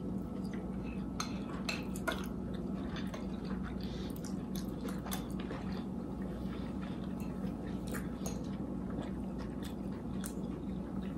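Chewing food close to the microphone: soft, irregular mouth clicks and wet chewing sounds with no words, over a faint steady hum.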